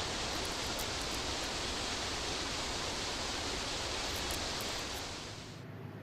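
Steady hiss, like running water or a rushing noise, that fades and cuts off in its upper part about five and a half seconds in.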